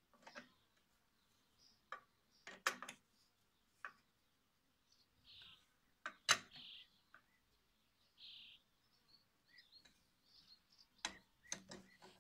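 Scattered metallic clicks and knocks from a hand tool working on a sickle-bar mower's cutter bar, a few at a time with quiet gaps between, the loudest about six seconds in and a cluster near the end.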